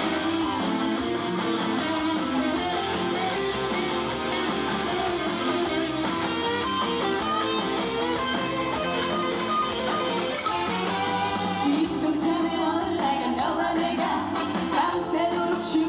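Live trot song performance: a female singer singing over a played-back band backing track, with guitar in the accompaniment.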